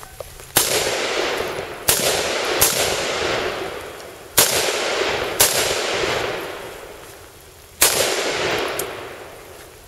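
Six rifle shots at an uneven pace, each trailing a long echo that fades over a second or more.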